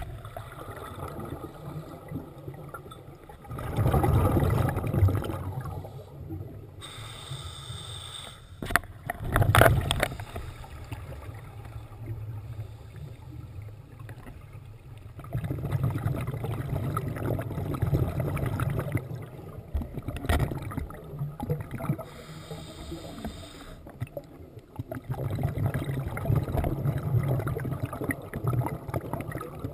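Scuba diver's breathing through a regulator, heard underwater: several rumbling bursts of exhaled bubbles, each lasting a few seconds, with quieter stretches between breaths.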